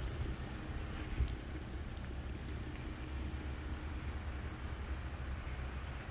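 Steady outdoor background of light rain falling on wet pavement, a soft even hiss over a low rumble. There is one brief tick a little after a second in.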